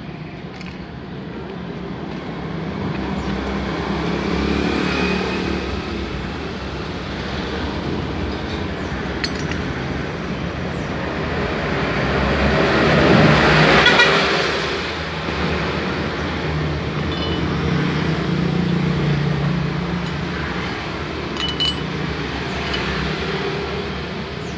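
Road traffic passing by: a steady drone of engines and tyres that swells as one vehicle passes close about halfway through.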